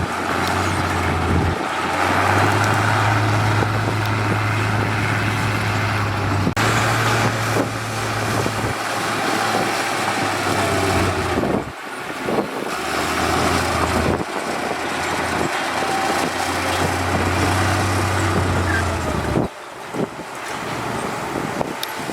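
Heavy diesel construction machinery running, a steady low engine drone under a broad rumble, with a few abrupt changes in the sound along the way.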